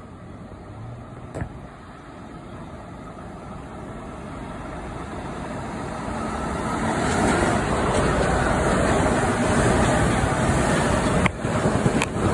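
Commuter train approaching and passing close below, its running noise growing steadily louder over the first several seconds and staying loud. Near the end come two sharp knocks.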